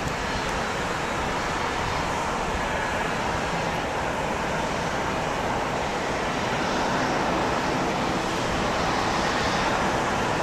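Steady, distant roar of an Airbus A330-243's Rolls-Royce Trent 772B turbofans at taxi power as the airliner rolls onto the runway, slowly growing louder.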